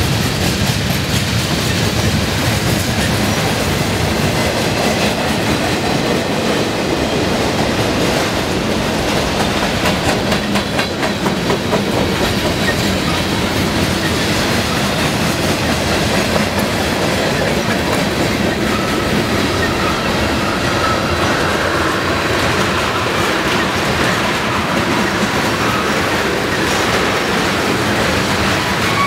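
A train rolling steadily past, its wheels clacking on the rails.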